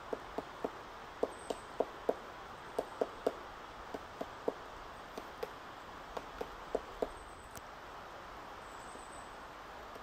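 Pileated woodpecker pecking into a decaying tree trunk: about twenty separate knocks at an uneven pace, some in quick pairs and threes, stopping about seven seconds in. The blows are single excavating pecks, not a drumming roll.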